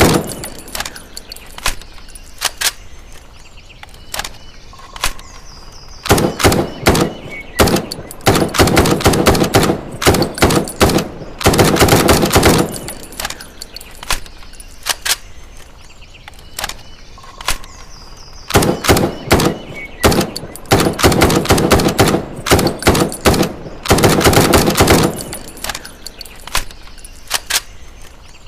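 M656 rifle sound effect: rapid automatic fire in long bursts, one stretch from about six to thirteen seconds in and a second from about nineteen to twenty-five seconds, with quieter gaps holding a few scattered clicks in between.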